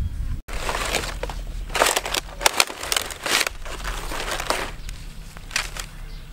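Dry palm fronds crackling and rustling under a large stingray as it is handled and turned over on them, in several bursts, loudest about two to three and a half seconds in.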